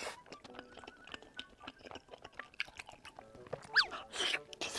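A person chewing food close to the microphone: many small wet clicks, with a short squeaky glide near the end.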